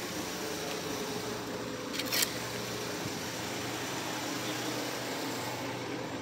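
A steady mechanical hum with a low drone and a fainter higher tone, and one brief scuff about two seconds in.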